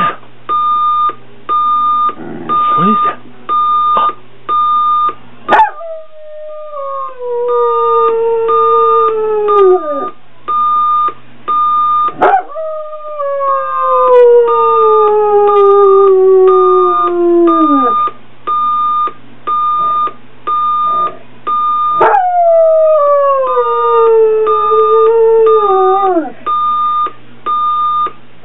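A dog howling along to an electronic alarm clock that beeps about twice a second. There are three long howls, each starting high and sliding steadily down in pitch, beginning about 6, 12 and 22 seconds in, with a short whimpering call a couple of seconds in.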